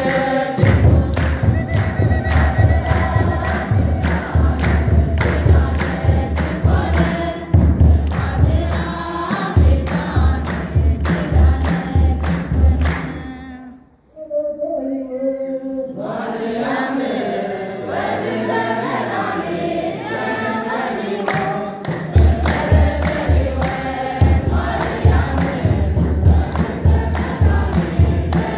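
Mixed church choir singing a hymn in unison to steady hand-clapping. About halfway through, the singing breaks off briefly, resumes for several seconds without clapping, and then the clapping returns.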